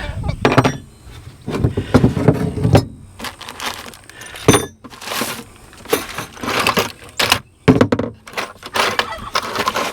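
Metal tools and hardware clinking and rattling in irregular bursts, as a wrench is handled and tried on a gate hinge nut.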